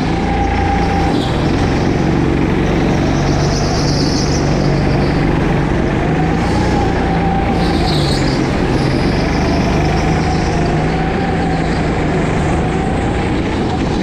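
Go-kart engine running hard, heard close up from the driver's seat, steady and loud with its pitch rising and falling slightly as the kart goes round the track.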